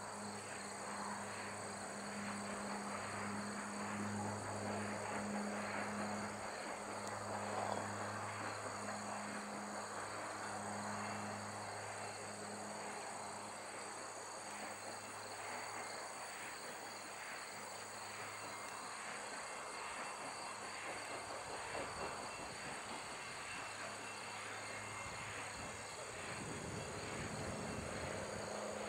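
Steady chorus of crickets and other insects trilling, over a low steady hum.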